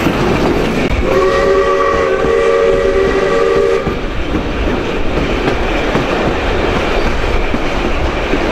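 Steam locomotive 621 blowing its whistle once for about three seconds over the steady rumble and wheel clatter of the moving broad-gauge train.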